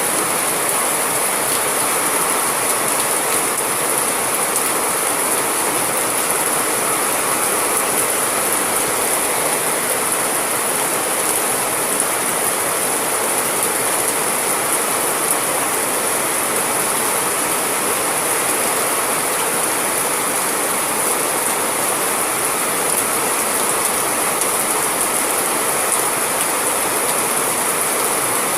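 Steady rain falling: an even, unbroken hiss with a fine crackling patter.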